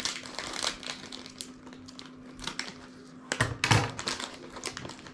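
Scissors snipping through a thin plastic wrapper, then the wrapper crinkling and rustling as it is pulled open by hand, a run of small clicks and rustles that gets louder about three and a half seconds in.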